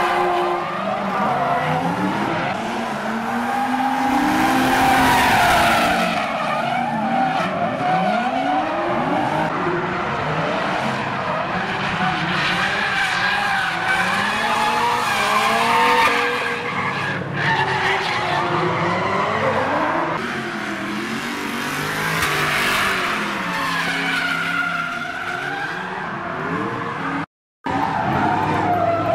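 Drift cars' engines revving up and down hard, several at once, over tyres squealing and skidding, with a brief dropout near the end.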